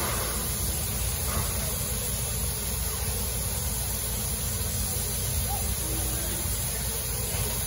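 Steam locomotive standing still and hissing steadily, with a low rumble underneath.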